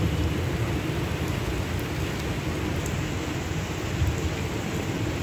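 Rain falling steadily on wet pavement and puddles, with a continuous low rumble underneath.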